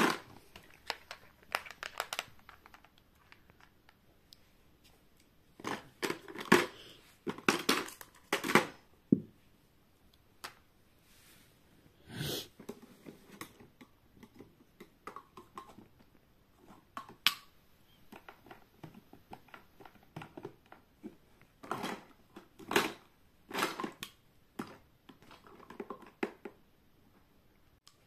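Small plastic toy dishes, cups and utensils being handled: scattered light clicks, clatters and rustles, bunched about six to nine seconds in and again from about twenty-two seconds.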